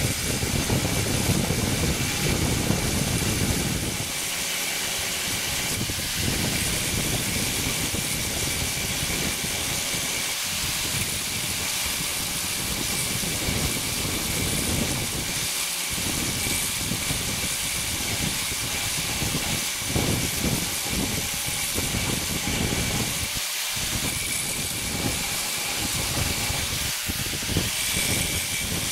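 Electric angle grinder running steadily, its grinding disc taking rust off the steel head of a ball pein hammer: a continuous grinding hiss over a steady motor whine, with more rumble in the first four seconds.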